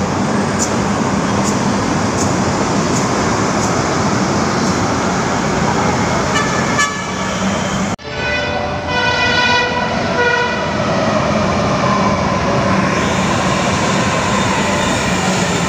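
LRT-1 light rail train running past the platform with a steady rumble and a faint clicking about once a second. After a cut, the first-generation (1G) LRV sounds its horn in a few short blasts, then its motors whine, rising slightly in pitch, as it runs into the station.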